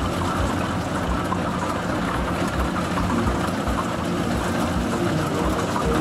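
Yanmar rice combine harvester's engine and machinery running steadily as it drives slowly through the paddy.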